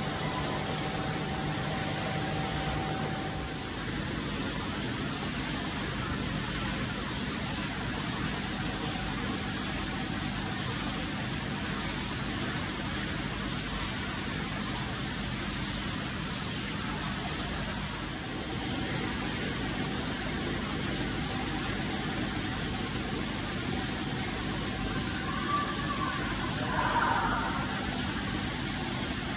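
Steady hissing background noise of an aquarium hall, with a faint low hum under it. Near the end there is a short, slightly louder sound.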